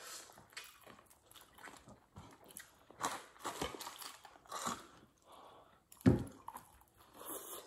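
People chewing and biting into crispy fried chicken, with scattered soft crunches, and a louder bite about six seconds in.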